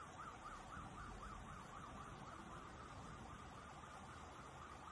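Faint electronic siren wailing in a rapid up-and-down warble, about five cycles a second, growing fainter in the second half, over a low hiss of rain and floodwater.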